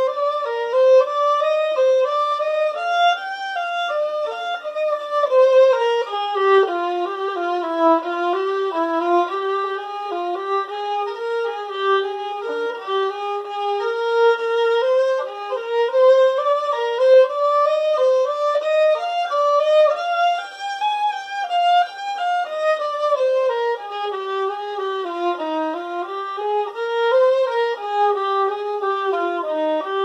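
Solo acoustic violin, bowed, playing a single flowing melody whose notes rise and fall in small steps without a pause.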